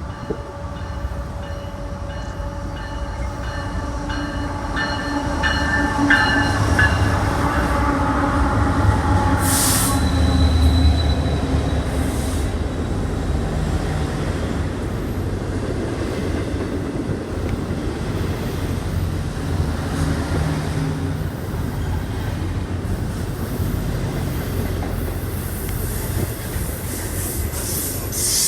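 A train rolling past: a heavy rumble that builds to its loudest about ten seconds in, with a pitched engine-like drone early on, then settles into a long, even rumble of wheels on the rails.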